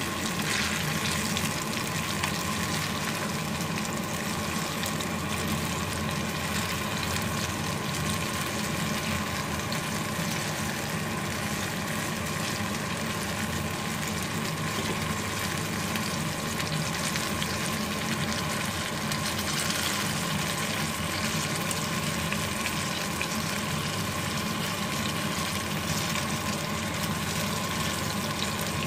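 Battered banana fritters sizzling steadily in hot oil in a frying pan.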